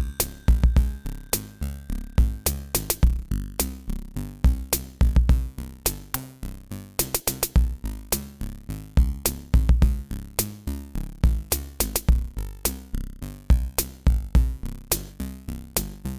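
Electronic background music with a drum-machine beat and a repeating bass line.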